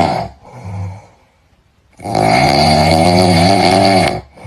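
A loud, raspy, drawn-out wailing cry from a cat-meme sound clip: a short weak call early, then one long wail of about two seconds, with a brief catch at the very end.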